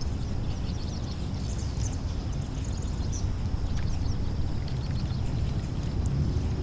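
Lakeshore outdoor ambience: a steady low rumble under a thin, steady high-pitched drone, with scattered short bird chirps.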